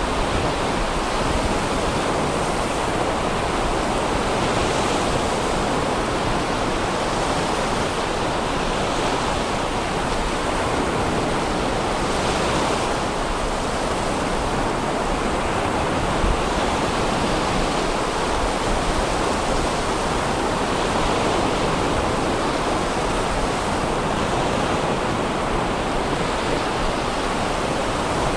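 Sea surf breaking and washing up a sandy beach: a steady rushing noise that swells and eases slightly.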